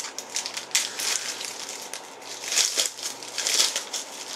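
Crinkling and rustling of a basketball card box's packaging being handled and opened, in several irregular bursts.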